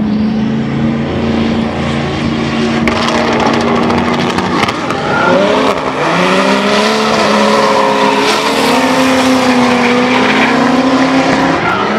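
Drift cars sliding sideways in tandem, engines held at high revs with the pitch wavering up and down as the throttle works. There is a steady hiss from the spinning tyres underneath. About halfway through, the engine note dips and climbs again.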